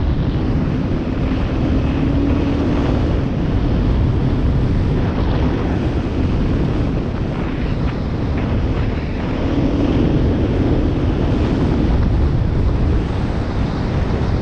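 Steady wind buffeting on the microphone over the running engine of a Beta 500 RR-S, a single-cylinder four-stroke dual-sport motorcycle, moving along at speed.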